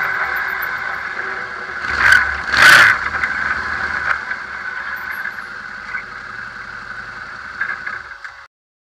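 Arctic Cat Wildcat UTV on the move, heard from a camera mounted by the rear suspension: a steady engine and drivetrain drone with two loud impacts a little over two seconds in. The sound slowly fades and cuts off suddenly near the end.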